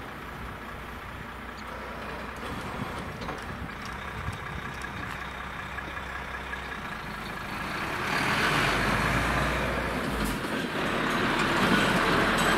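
Semi-trailer truck with a flatbed trailer approaching and driving over a railway level crossing, its engine and tyres growing louder from about eight seconds in.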